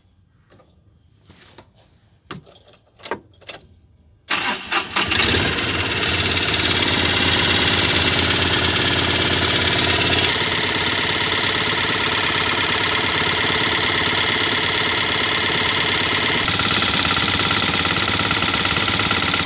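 A few faint knocks, then about four seconds in the Mahindra Maximo's two-cylinder common-rail diesel engine starts with a sudden loud onset and settles into a steady idle. It is being started after its clogged diesel return valve was cleaned and the tank assembly refitted.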